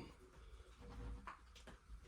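Near silence: a faint low rumble, with one faint tick a little past halfway.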